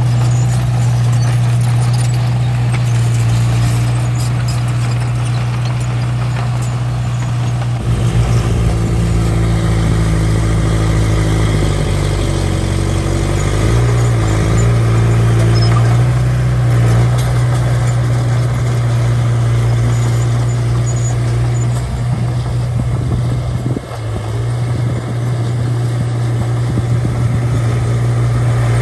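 Diesel engine of a small crawler bulldozer running steadily under work, its pitch shifting a few times as it pushes soil, with a brief drop in level near the end.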